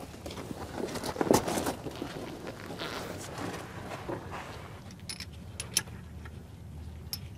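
Scuffing and rustling of a person getting down onto a plywood board under a semi truck, loudest about a second in. Later come a few short sharp metallic clicks as the nut and bushing go onto the new shock absorber's lower mount.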